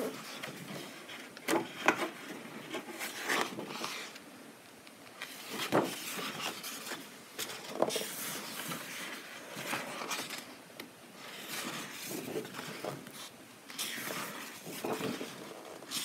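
Paper pages of a softcover coloring book being turned and smoothed flat by hand: a series of irregular rustles and swishes, some with a crisp edge.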